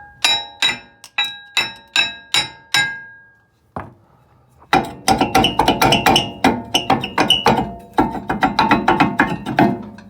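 A hammer striking a corroded brake rotor to knock it loose from the hub, the steel disc ringing after each blow. About eight blows come in the first three seconds, then a short pause, then a faster, denser run of blows from about halfway on.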